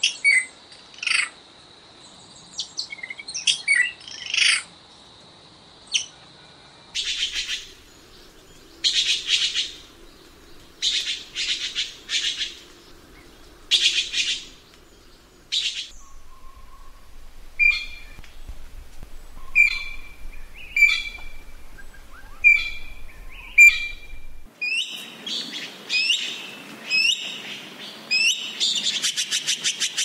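Red-billed blue magpie calling: a run of harsh, noisy calls about once a second, then sharp notes that drop in pitch, and near the end a fast chattering series of calls.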